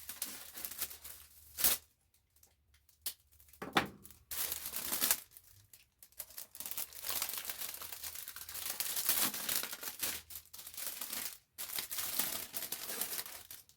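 Packaging bag being opened and handled, crinkling and rustling in irregular stretches, with a couple of sharp snaps in the first few seconds.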